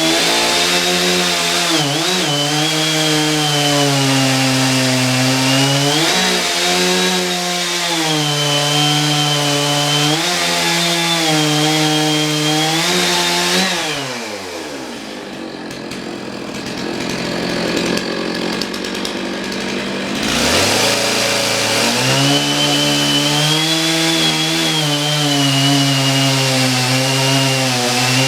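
Chainsaw with a worn-down old chain cutting into a log at full throttle, its pitch sagging and recovering as it loads up in the wood. About halfway through the revs drop away to idle for several seconds, then it revs back up and cuts again.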